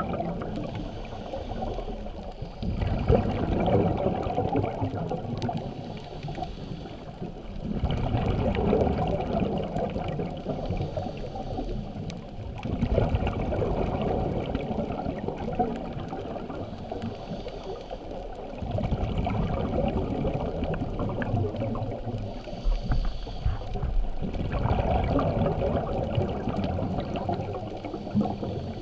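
Scuba diver breathing underwater through a regulator: five gurgling rushes of exhaled bubbles, one every five to six seconds, with quieter inhalations between, heard through the camera's underwater housing.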